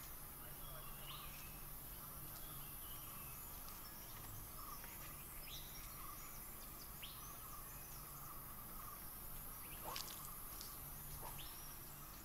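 Faint forest ambience: insects shrilling steadily, with scattered short bird chirps and one sharper click about ten seconds in.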